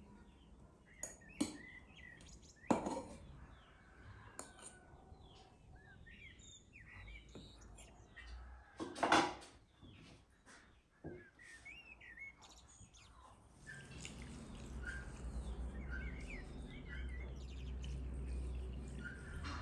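Small birds chirping throughout, with a few sharp clinks and knocks of a fork and glass jars, the loudest about nine seconds in. From about fourteen seconds in, a steady rush of liquid being poured from a glass jug into glass jars.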